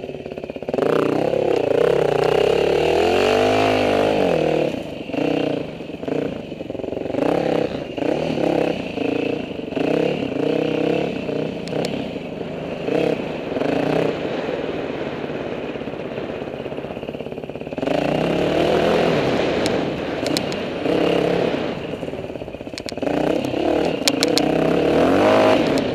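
Dirt bike engine being ridden hard, its pitch rising and falling again and again as the throttle is opened and shut, with rattling and knocks from the bike over rough, rocky ground.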